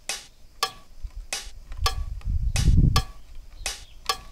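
A row of sharp, ringing metallic ticks, about one and a half a second and evenly spaced, with a low rumble swelling briefly in the middle.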